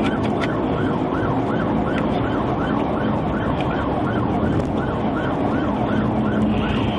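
Police siren on a fast yelp, its pitch rising and falling nearly three times a second without a break, heard from inside the pursuing patrol car over steady engine and road noise.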